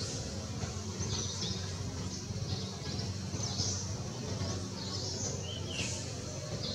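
Birds chirping in short high calls about once a second, over a steady low hum.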